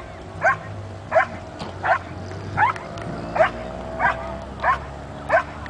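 A dog barking over and over at an even pace, about three barks every two seconds.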